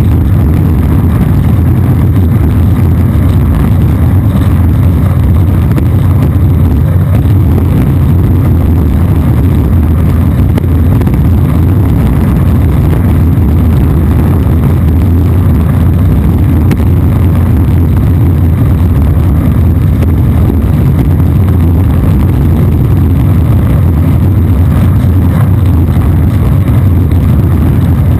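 Longboard wheels rolling fast over asphalt, picked up by a camera mounted low on the board: a loud, steady, deep rumble that never lets up.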